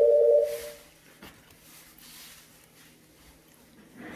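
Telephone ringback tone on a call waiting to be answered: a steady two-tone buzz that cuts off about half a second in, followed by the quiet gap of the ringing cycle with faint line hiss.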